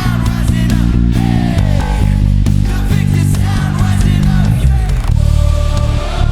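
Full-band rock worship music, with a bass guitar playing a prominent line of held low notes over steady drums and electric guitar.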